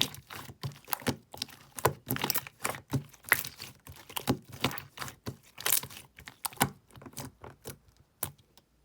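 Opaque slime being squished and pressed by hand, giving irregular sticky clicks and pops, several a second, that stop near the end.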